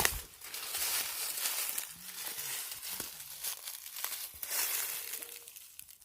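Dry leaves and brush crunching and rustling underfoot as someone walks through scrub, dying away near the end.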